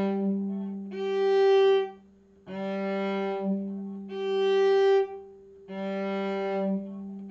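Cello bowing long sustained notes, alternating a low G on the D string with the G an octave above after a shift up the neck, each note held about a second with short breaks. It is an intonation drill: the low G is a guide note for matching the higher pitch.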